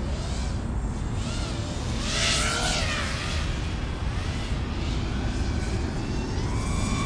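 Racing quadcopter's brushless motors and props whining, the pitch climbing and dropping with the throttle, loudest in a punch about two seconds in, over a steady rumble of wind on the microphone.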